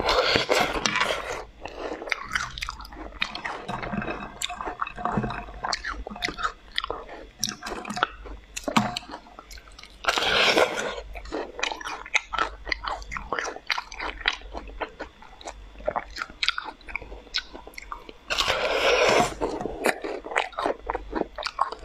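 Crunchy bites into clumps of blueberries frozen together in ice, followed by chewing with many small cracks. Three loud bites come at the start, about ten seconds in and near the end.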